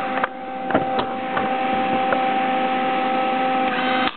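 Electric arc welding with a Lincoln Electric welder: the arc crackles and spits steadily over a constant hum, then cuts off suddenly near the end as the arc is broken.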